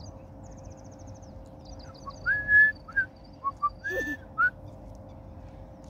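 A man whistling through pursed lips, starting about two seconds in: two longer notes that slide up and hold, with several short notes between them, lasting about two seconds.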